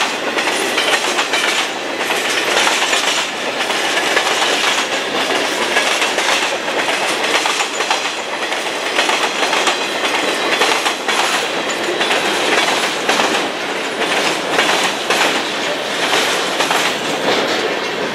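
Empty freight cars (woodchip gondolas and centerbeam flatcars) rolling past at speed: steel wheels clicking over rail joints in a steady clickety-clack with a continuous rumble. It eases off near the end as the last car goes by.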